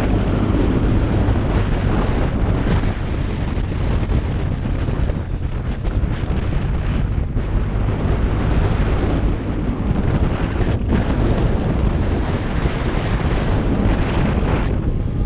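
Wind rushing over the microphone of a moving motorcycle, with the engine's steady low drone underneath.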